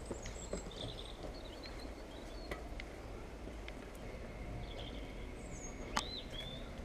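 Faint outdoor background noise with scattered short bird chirps, and a single sharp click about six seconds in.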